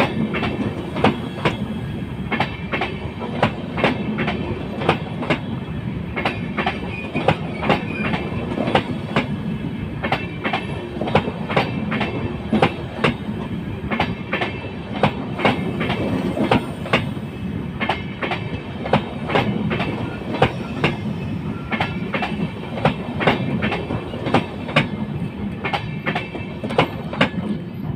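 Tejas Rajdhani passenger coaches rolling past, their wheels clicking over rail joints about twice a second over a steady rumble.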